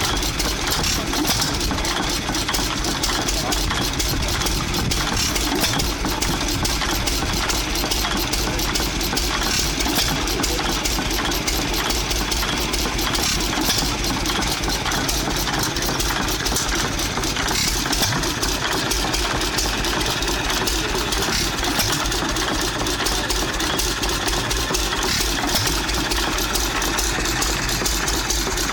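Small antique CH&E Mfg Co stationary gas engine running steadily with its flywheels turning, a fast even run of strokes, with other old engines running around it.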